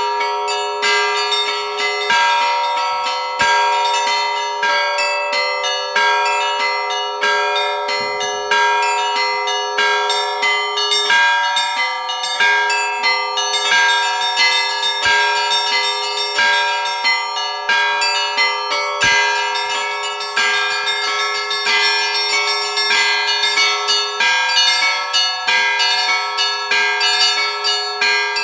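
Orthodox church bells rung together in a continuous, rapid peal: the deeper bells hum on while smaller bells are struck quickly over them.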